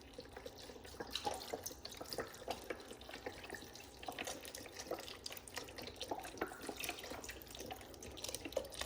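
Faint trickling and splashing water in a kitchen, with many small irregular ticks and clicks.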